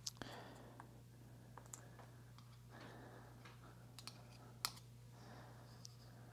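Faint, scattered light clicks and taps of small metal parts as a vacuum's wheel axle and gear assembly is handled and cleaned, the sharpest click a little past halfway.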